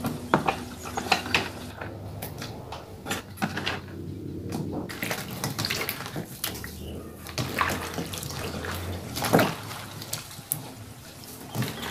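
Hands stirring and lifting thin eggplant slices in a bowl of salt water, with irregular splashing and sloshing. The slices are being washed to draw out the eggplant's sap.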